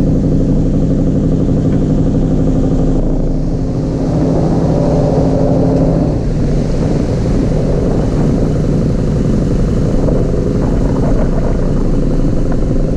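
Fishing boat's engine running steadily while the boat cruises, a constant low drone under a wash of water and wind noise.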